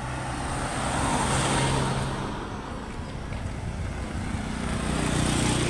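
Road traffic: motor vehicles passing, a low engine hum with tyre noise that swells and fades twice, once about a second and a half in and again near the end.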